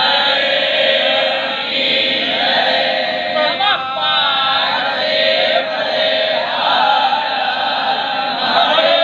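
A large group of male voices chanting together in unison, steady and unbroken.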